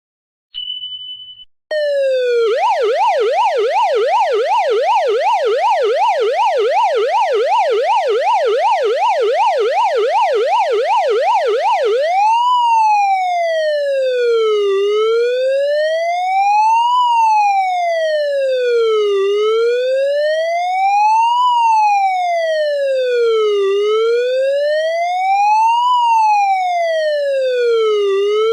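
Police car siren sound effect: after a short high beep, a fast yelp sweeping up and down about three times a second, which switches a little before halfway to a slow wail rising and falling every four to five seconds.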